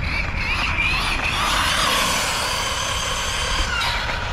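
Brushless motor and drivetrain of an Arrma Kraton 6S BLX 1/8-scale RC monster truck whining at full throttle on a top-speed run. The whine grows louder toward the middle, then fades and cuts off shortly before the end.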